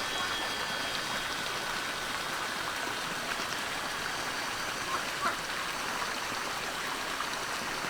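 Steady rush of running water, with a brief faint tick about five seconds in.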